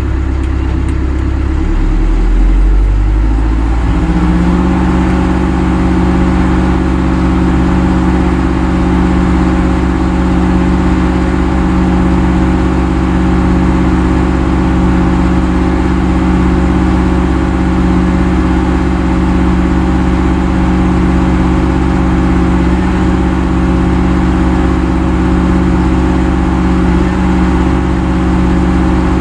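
A vehicle engine speeds up over the first few seconds, then runs at a steady speed.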